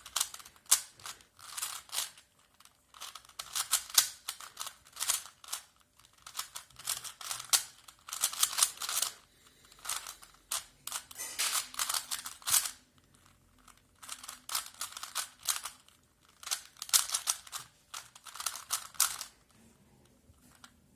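A Rubik's-brand puzzle cube being turned quickly by hand in a timed solve: rapid plastic clicking and clacking of the layers in bursts of a second or two, with brief pauses between them.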